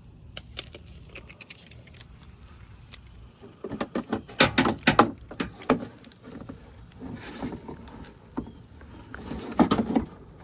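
Close handling noise from hands working up inside the truck's wheel well: scattered sharp clicks, taps and rustling, with denser clusters about four to six seconds in and again near the end.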